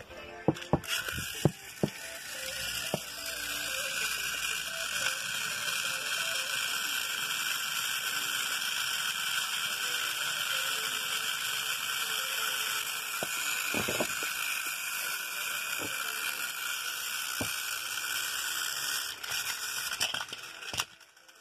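Battery-powered toy train motors and plastic gearboxes whirring steadily, with a few sharp clicks in the first two seconds. Near the end there is a brief clatter, and the whirring cuts off as the trains fall off the track.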